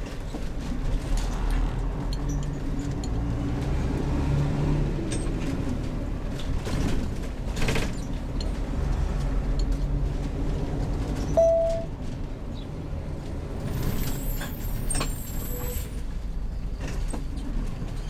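Heavy motorhome driving, a continuous low engine and road rumble with scattered knocks. A short beep comes about eleven seconds in.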